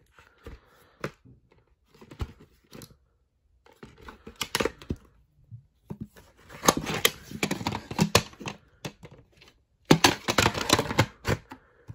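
A VHS cassette being handled in its plastic case: the case is opened and the cassette lifted out, with irregular clicks, scrapes and rustles of plastic and cardboard. The noises are sparse at first and come in denser bursts through the second half.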